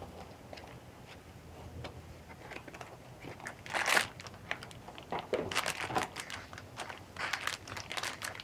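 Funko Mystery Mini box and its foil blind bag being handled: scattered light crinkling, with one louder crinkle about four seconds in as the bag comes out of the box, then a run of foil crackles.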